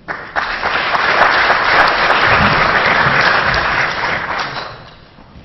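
Audience applauding, starting up at once, holding steady for about four seconds and then dying away near the end.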